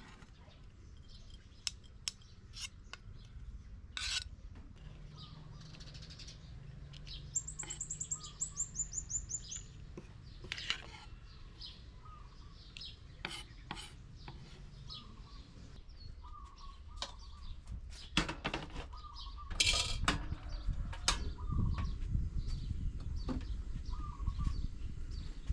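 Kitchen utensils and dishes clinking and knocking now and then during food preparation, with birds chirping in the background, including a fast high trill partway through.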